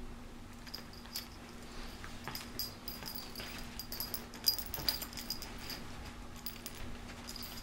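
Two small dogs play-wrestling on a bed: scuffling on the bedspread with scattered sharp clicks and light clinks, loudest about four and a half seconds in.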